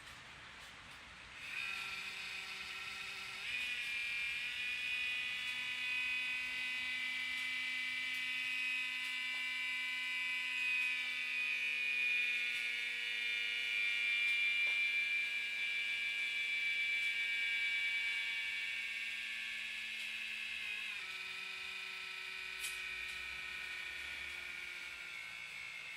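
Laptop cooling fan whining loudly at power-on, stepping up in pitch a few seconds in and dropping back down near the end. The noise comes only at start-up and then goes away; the owner has ruled out overheating and dust.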